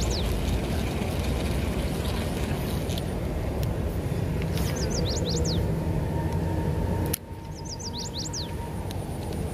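A bird sings the same short phrase three times: a few quick high notes followed by longer, steeply falling whistles. It sings over a steady low rumble that drops suddenly about seven seconds in.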